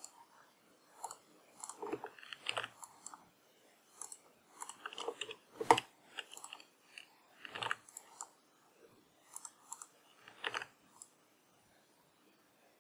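Faint, irregular clicks and taps of a computer keyboard and mouse, one sharper click a little before halfway, then little after the last few clicks.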